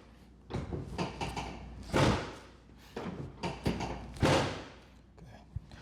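A series of thumps from a chiropractic adjustment on a patient lying face down on the treatment table, with the loudest about two seconds and about four seconds in, and a sharp click near the end.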